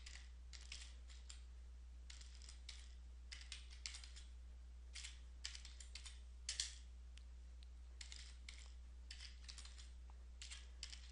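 Computer keyboard being typed on: faint, irregular runs of key clicks with short pauses, over a steady low electrical hum.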